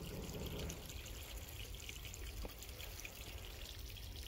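Spring water pouring in a thin stream from a pipe spout into a pebble-lined stone basin: a steady splashing trickle.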